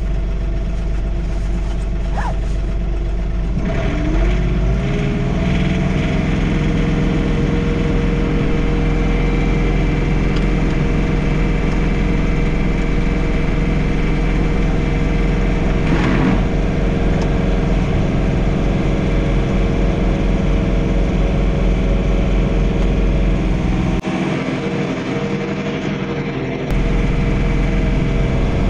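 John Deere 3046R compact tractor's three-cylinder diesel engine running, revving up from a lower speed a few seconds in and then holding a steady higher speed. Its low drone briefly falls away a few seconds before the end.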